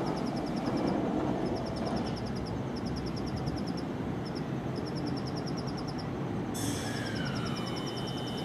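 Steady low rumble of railway station background noise, with runs of fast, high-pitched ticking. Near the end, a train's high steady squeal and a falling tone start up.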